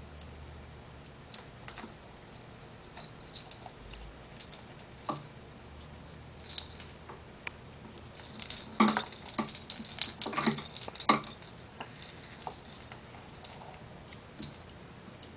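Plastic ball toy being shaken and chewed by a green-winged macaw, giving irregular bursts of jingling and rattling with sharp clicks and knocks. It is sparse at first and busiest and loudest from about 8 to 11 seconds in.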